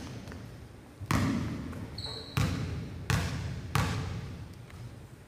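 Basketball bouncing on a gym floor, four sharp bounces echoing in the hall. There is a brief high squeak just before the second bounce.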